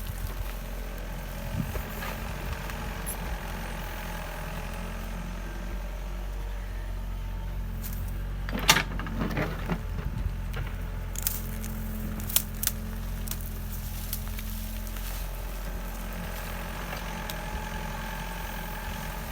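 An engine running steadily with a low hum, with scattered clicks and knocks on top; the loudest knock comes about halfway through, followed by a few sharp clicks.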